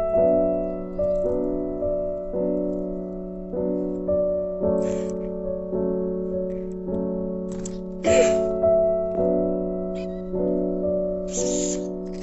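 Background piano music: slow notes struck about once a second, each one fading away. A few short hissy noises come through over it.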